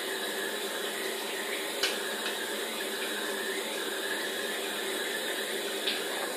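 Tap water running steadily into a sink, with a sharp clink a little under two seconds in and a softer one near the end.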